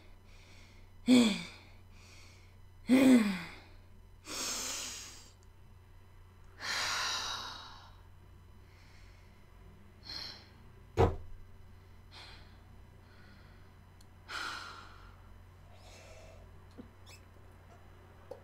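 A woman's voice making two short vocal sounds that fall in pitch, then long breathy sighs and exhales, with fainter breaths later. A single sharp click about eleven seconds in.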